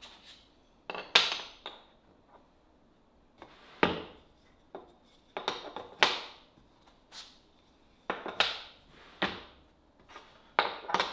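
Workholding clamp parts and bench dogs being handled and set down on a workbench top: a series of separate clacks and knocks with short gaps between, some in quick pairs or clusters.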